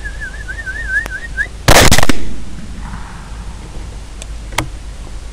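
A person whistles a warbling, trilling whistle for about a second and a half to make a feral hog lift its head, then a rifle shot goes off, very loud and trailing off in an echo. A sharp click follows near the end.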